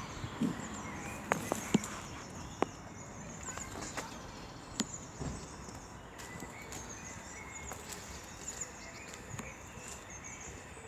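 Quiet outdoor ambience with small birds chirping in short, high, repeated phrases, and a few sharp clicks in the first five seconds.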